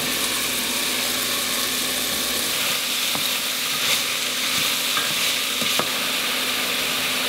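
Diced lobster mushrooms, onions, carrots and celery sizzling steadily in butter in a hot saucepan, with a few faint clicks partway through.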